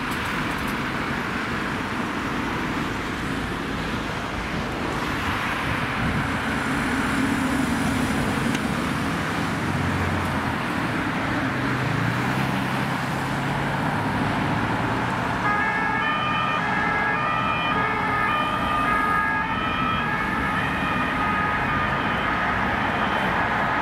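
Road traffic noise with vehicle engines running, one engine note rising a little before halfway. About two-thirds of the way in, a French two-tone ambulance siren starts, alternating steadily between a high and a low note.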